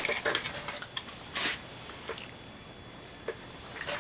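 Hands handling a monitor's power supply circuit board on a workbench while replacement capacitors are fitted: scattered light clicks and taps, most in the first second, and a brief scrape about a second and a half in.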